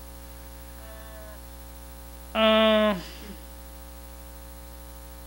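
Steady electrical mains hum running under the recording. A little before halfway a woman makes one short hesitation sound held on a single pitch, dropping at its end.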